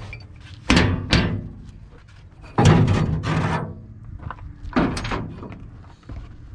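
Metal clanking against the steel frame of a truck flatbed: about five sharp clanks with a ringing ring-out, the loudest a little past halfway.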